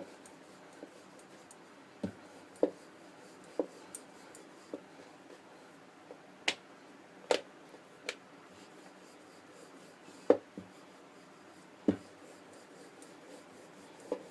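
Rolling pin rolling samosa dough out on a chopping board: a soft rubbing with irregular knocks, about a dozen, the loudest about ten seconds in.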